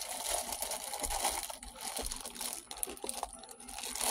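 Plastic flag packaging crinkling and rustling as it is handled and opened.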